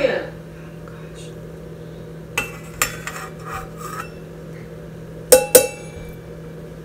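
Stainless steel measuring cups clinking: a few light metal clicks about two and a half to three and a half seconds in, then two sharp, loud clinks about five and a half seconds in, over a steady low hum.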